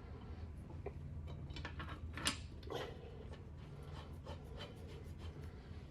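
Faint scraping and light clicks of metal parts being handled, with one sharper click a little over two seconds in, over a steady low hum.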